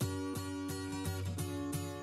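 Background music with a strummed guitar in a steady rhythm, starting suddenly.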